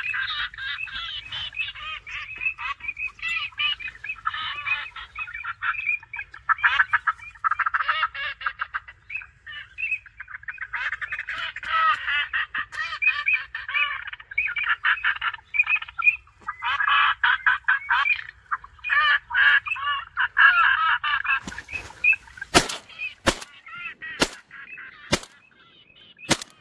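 A flock of ducks calling continuously in rapid, overlapping calls. In the last few seconds the calling stops and five sharp cracks follow one another.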